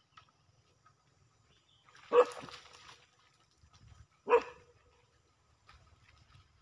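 A dog barking twice, each bark short and loud, about two seconds apart.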